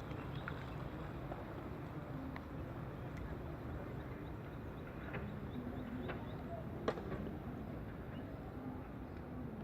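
Steady low background noise with faint scattered ticks and one sharper click about seven seconds in.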